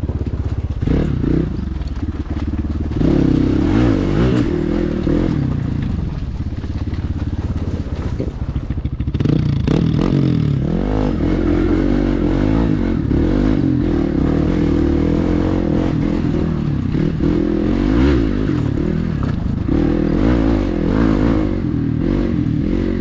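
Hero Xpulse dirt bike's single-cylinder four-stroke engine running under load, revs rising and falling with the throttle, with stones clattering and crunching under the tyres on loose gravel.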